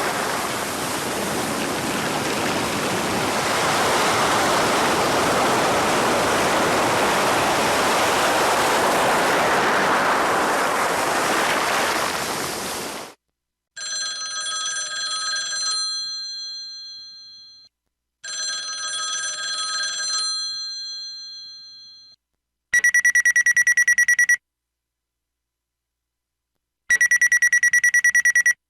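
A SKY IM-U150L slide phone's speaker playing its built-in ringtones, made on a 64-voice Yamaha MA-5 synthesizer chip. First a rushing noise effect plays and cuts off suddenly about thirteen seconds in. Then come two short chime phrases that ring out, and then two bursts of rapid electronic ring beeps, each about a second and a half long and a few seconds apart.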